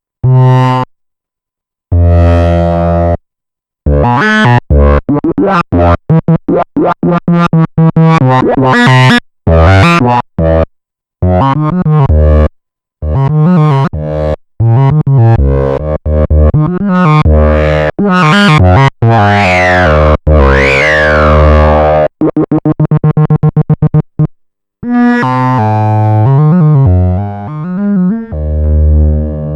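Arturia MiniBrute 2 analog synthesizer playing a patch: a line of bright, bass-heavy notes separated by short gaps, with a couple of quick up-and-down sweeps in the middle and a fast stuttering run of repeated notes about three quarters through.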